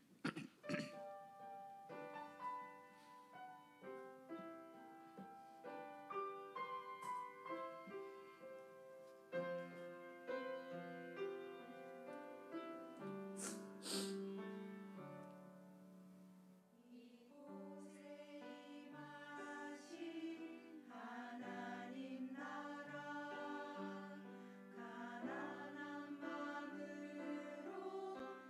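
Piano plays a hymn introduction, then a women's church choir comes in singing a Korean sacred anthem over the piano a little past halfway.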